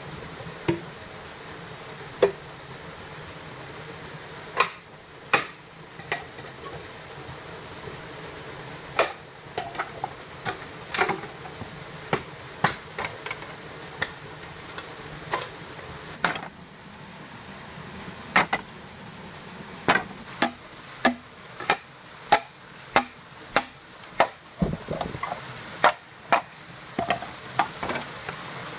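Bamboo being chopped and split into slats: sharp, irregular knocks, coming quicker and more evenly, about two a second, in the later part. A steady rush of stream water runs underneath.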